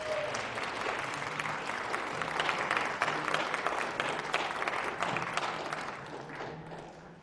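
Audience applauding, a dense patter of many hands clapping that holds steady and then dies away near the end.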